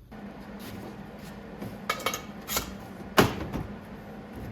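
Steel parts knocking and clanking four times as a metal hose hanger is handled and set against the welding cart's steel frame, the last knock the loudest, over a steady low hum.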